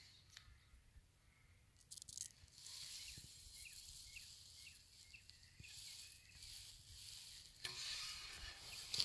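Faint outdoor ambience with a soft high hiss and a few brief rustles, and for a few seconds in the middle a run of short high chirps, about three a second.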